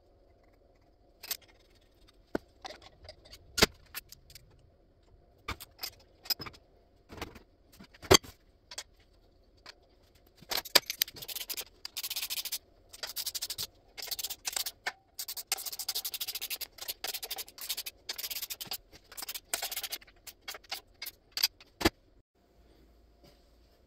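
Small metal hand tools and parts clicking and tapping on a transmission's pump and bellhousing, then about ten seconds of rapid metal scraping and rubbing in short bursts, with a few louder clicks near the end.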